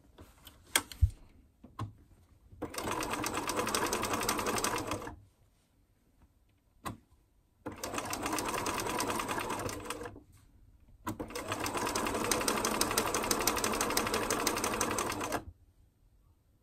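Bernina 1230 (Riccar RCM 1230) electronic sewing machine stitching in three runs of a few seconds each, the needle going at a fast, even rhythm. A few sharp clicks come before the first run and one falls between the first two.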